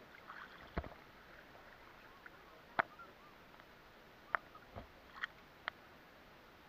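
Shallow seawater sloshing faintly around people wading waist-deep, with a handful of small splashes and sharp ticks, the loudest about three seconds in and again just past four seconds.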